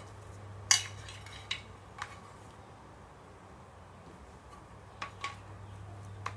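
Small aluminium tin knocking on a hard tabletop, one sharp clatter just under a second in, then a few lighter knocks and clicks as the tin and plastic bottles are handled.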